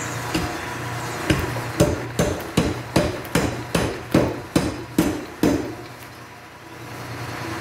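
Beaudry No. 5 mechanical power hammer forging red-hot iron: about a dozen heavy blows at roughly two and a half a second. The blows stop about five and a half seconds in, and the hammer's drive keeps up a steady hum.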